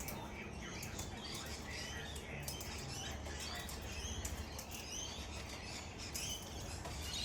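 Wild parrots chattering in a steady stream of short, high chirps, with scattered wing flaps and rustles.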